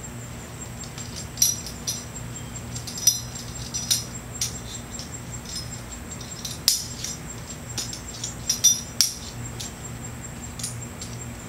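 Metal climbing hardware clinking as a rappel rack is rigged onto the rope: sharp, irregular clicks and clinks of the rack's bars and carabiners, about a dozen in all, with a quick run of the loudest ones near two-thirds in. A steady low hum lies underneath.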